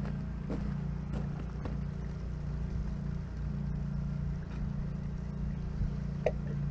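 An engine idling steadily with a low hum, with a few light clicks and knocks from PVC pipe and fittings being handled.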